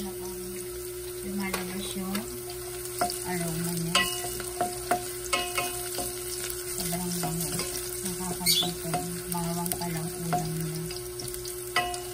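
Chopped garlic sizzling in hot oil in a stainless steel saucepan, stirred with a wooden spoon that knocks and scrapes against the pan now and then.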